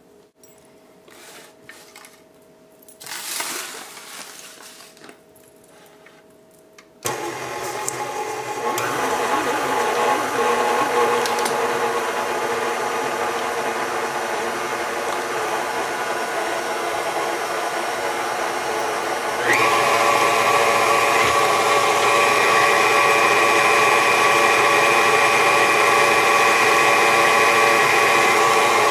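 KitchenAid Artisan stand mixer starting up about a quarter of the way in, its flat beater creaming butter, sugars and peanut butter with a steady motor whir. About two-thirds of the way in it steps up to a louder, higher-pitched whine. Before it starts there are only a few quiet handling knocks and rustles.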